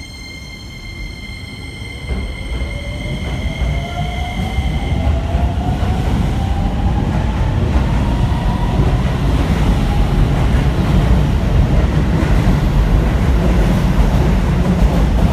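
An electric commuter train on the Keisei line accelerating past, its motor whine rising in pitch over several seconds while the rumble of wheels on rails grows steadily louder. Steady high-pitched tones fade out about five seconds in.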